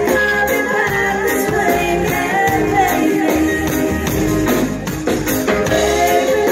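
Live reggae band playing: drum kit, electric guitar and keyboards, with a steady beat and a sung melody line over it.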